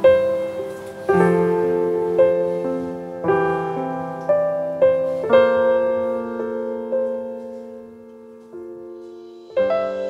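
Slow, soft piano music: chords struck about once a second and left to ring and fade, thinning to a single fading chord before a new one is struck near the end.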